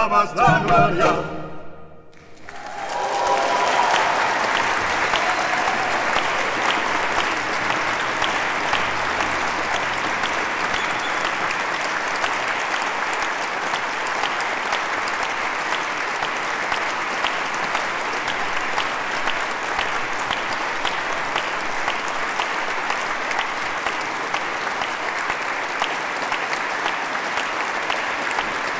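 A baroque ensemble's final chord stops about a second in. After a brief hush, an audience breaks into steady applause that stays even.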